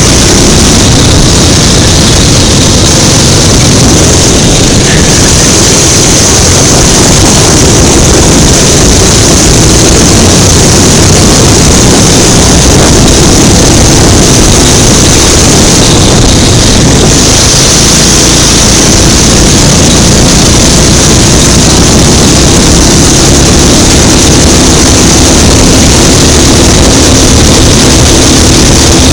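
Go-kart engine running at speed as the kart laps, heard up close from on board the kart; loud and steady throughout.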